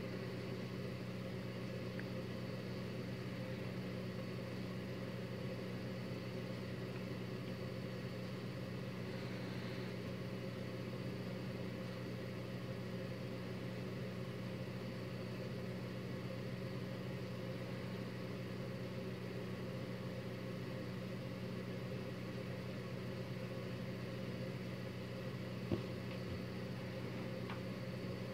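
Steady low mechanical hum, unchanging throughout, with one short click near the end.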